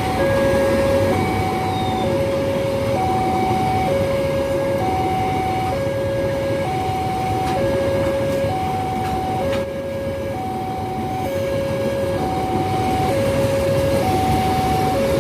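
Railway level-crossing warning alarm sounding a two-tone signal, a lower and a higher tone alternating about every half second, over the steady rumble of a passing train.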